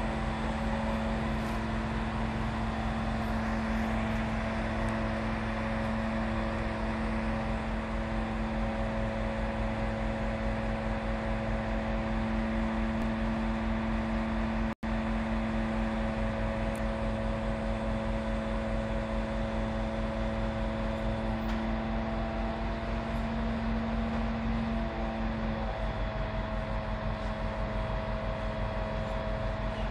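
Diesel engine of a 22 m aerial platform truck running steadily to drive the hydraulics as the boom lifts the basket: a continuous humming drone with a low, fast pulse. The tone shifts slightly a few seconds before the end.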